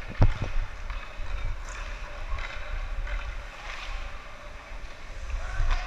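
Ice-rink sound of a youth hockey game: skate blades scraping and rushing over the ice, over a steady low rumble on the microphone. A few sharp knocks come just after the start.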